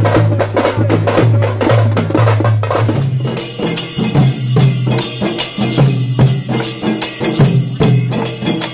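Percussion-driven music: drums beaten in a fast, steady rhythm with rattling, clicking percussion over a pulsing low tone. The rhythm changes about three seconds in.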